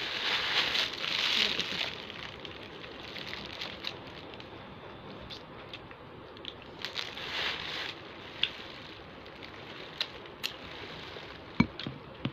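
Paper food wrapper crinkling as a piece of fried chicken is unwrapped and handled, strongest in the first two seconds and again about seven seconds in, with scattered small clicks in between.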